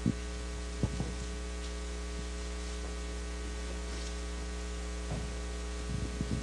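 Steady electrical mains hum with a stack of overtones, with a few brief soft knocks about a second in and near the end.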